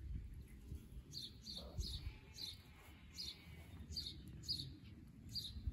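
A small bird chirping repeatedly in the background: short, high, downward-sweeping notes, roughly two a second, starting about a second in. A low rumble sits under it, strongest in the first second.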